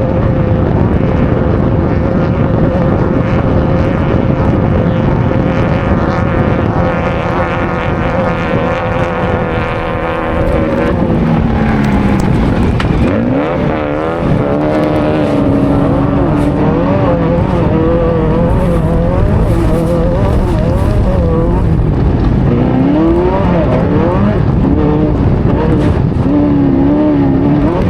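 Off-road race vehicle's engine heard onboard at speed, held at steady high revs for about the first ten seconds, then revving up and down again and again with the throttle, over a constant noisy rush.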